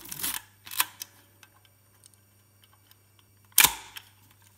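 Kiev 6C medium-format SLR being worked through a shutter test at 1/250 s: a few sharp mechanical clicks, then a loud clack of its focal-plane shutter and mirror firing about three and a half seconds in.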